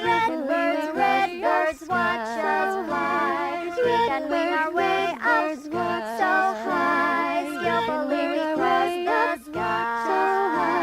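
Song with several singing voices in harmony, wavering with vibrato, over a light backing of steady low notes.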